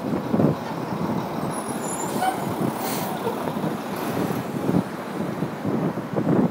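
Street traffic noise from a heavy vehicle running, with a short hiss about two to three seconds in.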